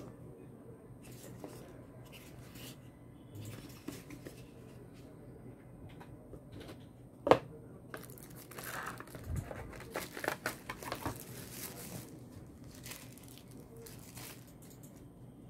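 Tissue paper crinkling and rustling as it is pulled off a small phone, with cardboard box handling and one sharp knock about seven seconds in, the loudest sound.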